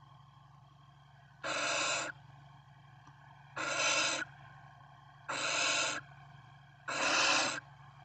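Barn owl nestlings giving four rasping, hiss-like begging calls (the owlets' 'snoring'), each about two-thirds of a second long, at a steady pace of roughly one every second and a half to two seconds.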